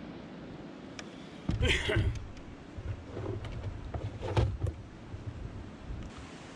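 Kayak paddle being shifted across a plastic kayak, knocking and bumping against the hull with some rustling. The loudest clatter comes about a second and a half in, followed by smaller knocks.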